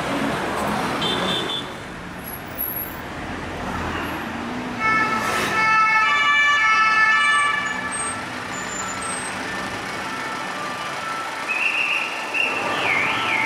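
French police sirens over city traffic noise. A siren sounding steady tones starts abruptly about five seconds in and is the loudest sound, and near the end a siren sweeps rapidly up and down in pitch.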